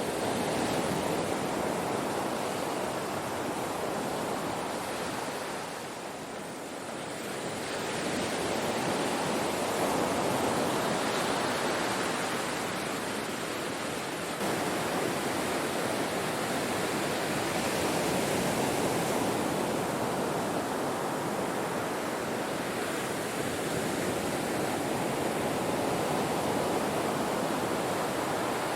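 Ocean waves breaking on a shore: a continuous wash of surf that swells and eases, with a brief lull about six seconds in.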